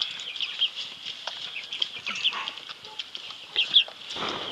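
Chickens clucking, with many short high chirps throughout and a brief rustle about four seconds in.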